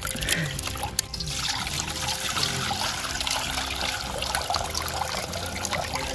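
Hands squelching crushed berries in a pot of juice, then, from about a second in, the juice pouring in a steady stream from the pot through a plastic strainer and splashing into a metal bowl.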